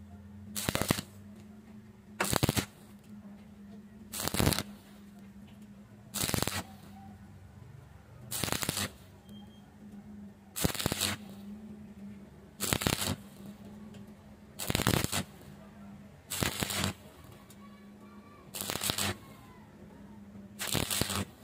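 Stick-welding arc on a 6013 electrode crackling in short bursts, about one every two seconds, as the arc is struck and broken in a stitch pattern up a vertical joint on square pipe. A steady low hum continues between the bursts.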